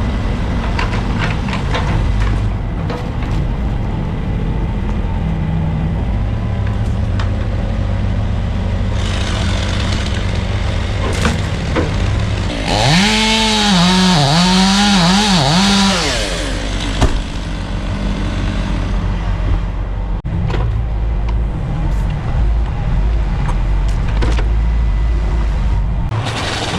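A two-stroke chainsaw revs and cuts for about three seconds mid-way, its pitch dipping and rising with load, over a steady low rumble of heavy engines. Scattered knocks of wood and gear come through before and after.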